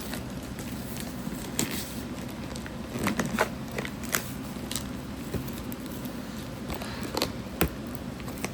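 Packaging being handled and opened by hand: crinkling and rustling with scattered sharp clicks and knocks, busiest about three seconds in and again about seven seconds in.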